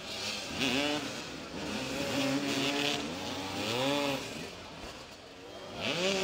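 Motoball motorcycles revving, their engine notes rising and falling in short bursts. Near the end one note rises and then holds steady.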